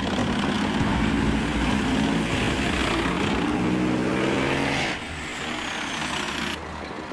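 A vehicle engine running, its pitch rising and falling, cut off abruptly about five seconds in and followed by a quieter rumble.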